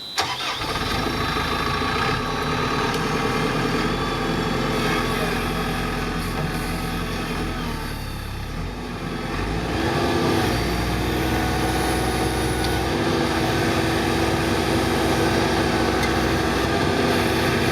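Backhoe loader's diesel engine running steadily under the operator's control. About ten seconds in it revs up, its note rising and getting louder, then holds at the higher speed.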